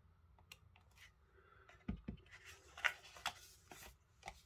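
Hands handling paper and a clear stamp on a craft mat: scattered light rustles, scrapes and taps, with two soft thumps about two seconds in and the loudest scrape just before three seconds, as the stamp is peeled off the paper.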